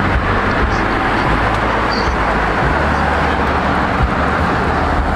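Steady rushing road and traffic noise with a low rumble beneath. It cuts in suddenly and stays even throughout.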